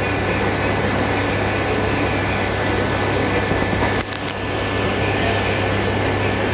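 Supor induction cooktop running at full power, its cooling fan whirring steadily over a low electrical hum, with water boiling in a stainless steel pot on it. The noise dips briefly about four seconds in.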